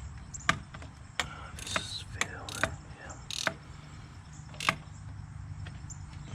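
Irregular sharp clicks and knocks of parts and hand tools being handled during work on a car's shifter linkage, over a low steady hum, with a brief rustle a little past the middle.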